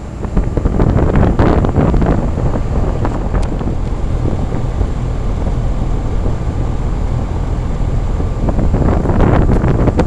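2003 Dave Lennox Signature Collection 2.5-ton air-conditioner condensing unit running, heard from right over its top fan grille. Air blown up by the condenser fan buffets the microphone as loud wind noise over the unit's steady low hum. The noise rises sharply about half a second in and stays loud to the end.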